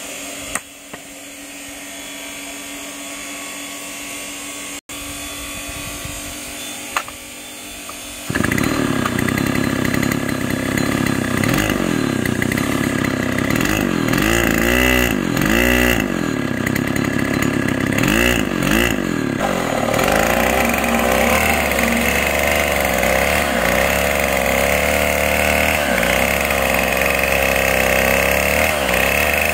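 Petrol chainsaw engine: after a few seconds of quiet with a couple of clicks, it comes in suddenly about eight seconds in, its revs rising and falling. Later it holds a higher, steady pitch as the bar rips lengthwise along a wooden plank.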